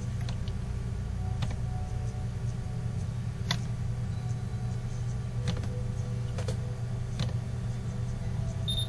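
Computer mouse clicking, about seven sharp clicks spread unevenly, over a steady low electrical hum.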